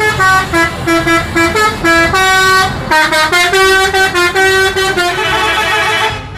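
A bus's multi-tone musical air horn, the Indonesian "telolet" kind, playing a quick tune of short notes that step up and down in pitch. Some notes in the middle are held longer, and it stops just before the end.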